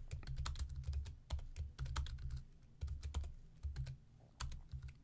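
Typing on a computer keyboard: quick, irregular keystrokes in short runs with brief pauses between them.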